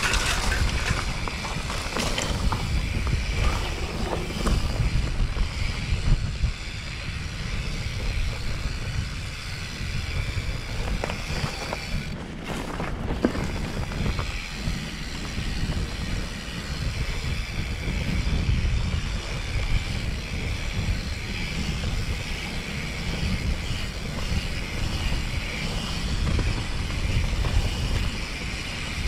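Wind buffeting a handlebar-mounted camera's microphone over the rolling rumble of mountain bike tyres on a dirt singletrack, with small rattles and clicks from the bike over bumps.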